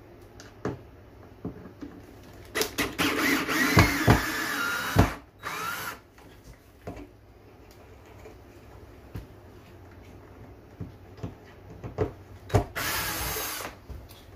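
Cordless drill spinning out screws from a wooden wall cabinet. It runs in a burst of about two and a half seconds with the motor's whine wavering in pitch, then a short burst, then another burst of about a second near the end. Scattered clicks and knocks come in between.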